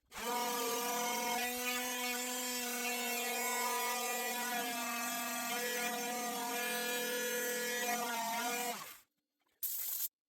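Small electric power tool running steadily at an even pitch for about nine seconds, then switched off, followed by a brief half-second burst near the end.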